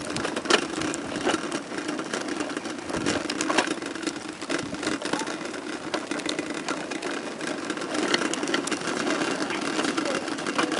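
Hard plastic tricycle wheels rolling over rough asphalt: a steady rumble with many small clicks.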